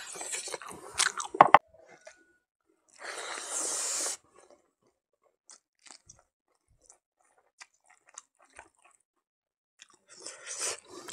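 Close-up mouth sounds of eating by hand: crunchy biting and chewing of a mouthful of rice and smoked pork, with sharp crunches in the first second and a half. About three seconds in there is a hiss lasting about a second, then only sparse soft chewing clicks, and crunching starts again near the end.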